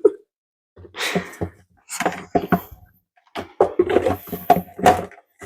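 Kitchen items knocked and set down on a worktop: a scattering of short clatters and clinks, with a brief rustle about a second in.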